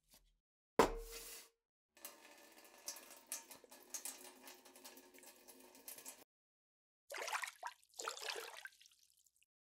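A sharp knock about a second in, then tap water running into a stainless steel basin for about four seconds. Near the end, two short bursts of gloved hands scrubbing a part in soapy water.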